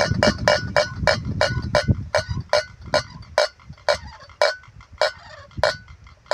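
A wind-driven bird-scaring windmill (kitiran) knocking out a hollow, ringing clack with each turn of its striker, about four clacks a second at first and slowing to one every half second or so as the wind eases. Wind rumbles on the microphone in the first half.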